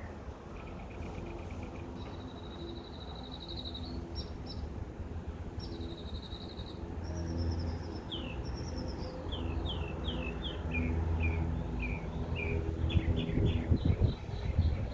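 Songbirds chirping and trilling: short buzzy trills at first, then a run of quick falling notes in the second half, over a low steady rumble.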